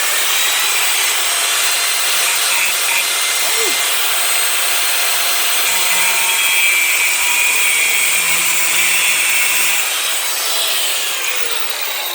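Electric power tool cutting through a part of a steel screwdriver, a loud steady hiss with a high whine. About ten seconds in it winds down, its whine falling as the motor spins to a stop.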